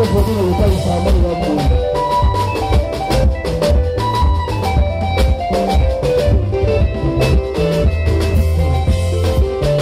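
Live band playing a seben, the fast guitar section of Congolese soukous: quick runs of picked electric guitar notes over a bass guitar line and a drum kit keeping a steady beat.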